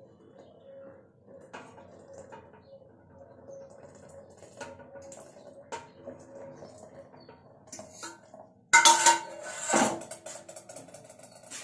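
Steel kitchen utensils being handled on a stone counter: light clinks and taps, then a loud clatter of steel pots or lids about nine seconds in, ringing briefly.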